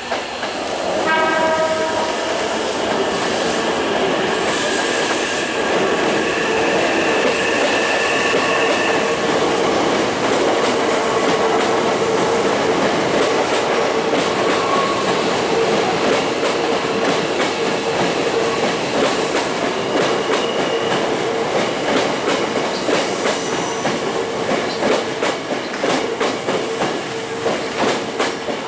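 Hankyu 9000-series electric train running slowly past on the adjacent track, its wheels clacking over the rail joints with a steady electric hum. A short horn sounds about a second in.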